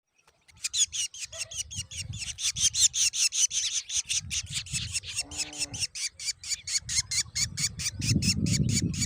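Drongo chicks begging in the nest: a rapid, even run of high, raspy cheeps, about six or seven a second, over a low rumble that grows stronger near the end.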